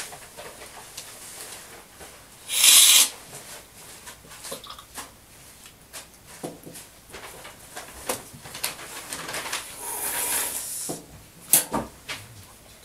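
Coffee slurped hard off a cupping spoon during a tasting, a short loud hiss of about half a second, then a softer, longer slurp later, and a sharp clink of a spoon against a cup near the end.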